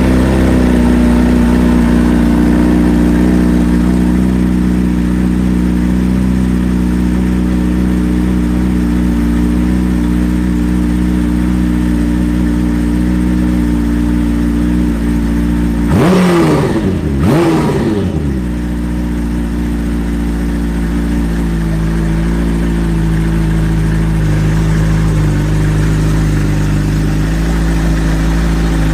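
Turbocharged Suzuki Hayabusa inline-four (TTS SuperBusa) idling steadily, revved twice in quick succession about halfway through, then settling back to idle.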